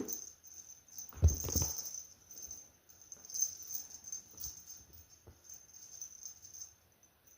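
Cats playing with a toy: soft thumps and pattering of paws and toy, loudest about a second in, then scattered light clicks. A thin high whine pulses underneath and fades near the end.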